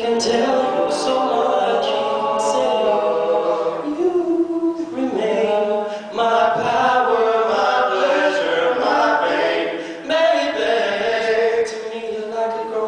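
Male a cappella quartet singing, several men's voices in harmony with no instruments, with two short breaks between phrases.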